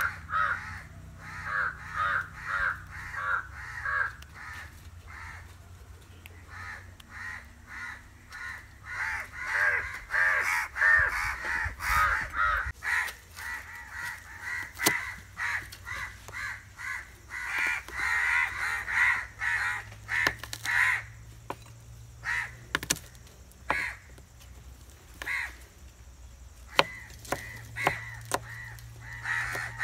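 Crows cawing over and over in runs of quick calls, about two a second, with short pauses between runs. Sharp knocks of a kitchen knife chopping garlic on a wooden cutting board come in between, more often near the end.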